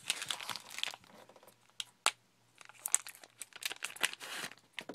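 Trading-card pack wrapper crinkling and tearing as it is handled and opened, in irregular bursts of rustling with short pauses between.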